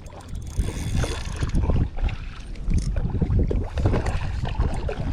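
Wind buffeting the microphone: an uneven low rumble with a brief hiss about a second in.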